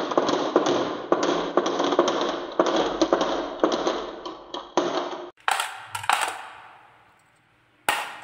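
Glass marbles rolling down a carved wooden wave track, a continuous clattering rattle full of clicks as they roll and knock against one another, running into a plastic toy truck's bin of marbles. The clatter stops about five seconds in, followed by a few sharper clinks, then two clicks near the end.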